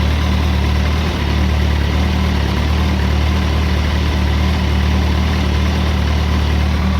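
Kawasaki ZX-14's inline-four engine idling cold at a steady speed, with a clatter the owner hears from the new bike when it is cold.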